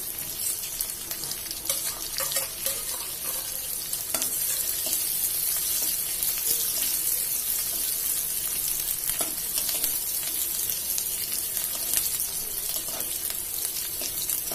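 Chopped onion, green chilli and curry leaves sizzling in hot oil with mustard seeds and cumin in a metal kadhai: an Indian tadka being fried. The steady sizzle is stirred with a metal spoon that scrapes and clicks against the pan now and then.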